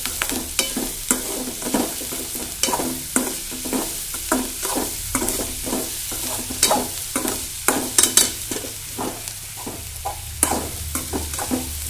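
Steel slotted spoon scraping and stirring an onion, green chilli and peanut tempering around an aluminium kadai, with the oil sizzling underneath; the scrapes come about twice a second. The tempering is being fried until it browns.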